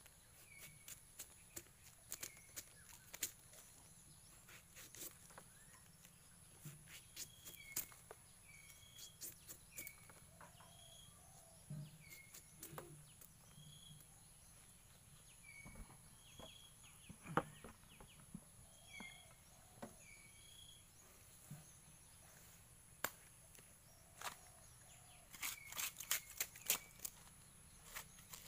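A small knife cuts and strips the sheaths off a bamboo shoot: irregular sharp clicks and snaps, coming faster near the end. Birds chirp in short repeated calls behind it, over a faint steady high-pitched whine.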